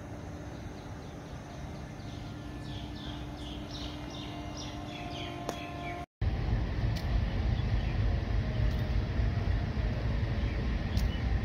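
Railway station ambience: a steady low hum with a run of quick bird chirps. After a cut about six seconds in, a louder, steady low rumble takes over.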